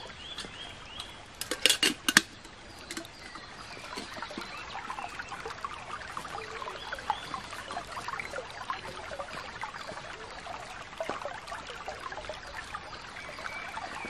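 Shallow woodland stream trickling and babbling over stones, with a few sharp clicks about two seconds in.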